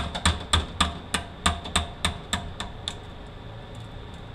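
Small hammer tapping on a pin punch to drive a linkage pin out of a 4F27E automatic transmission case: quick sharp metallic taps about three a second, getting lighter and stopping about three seconds in.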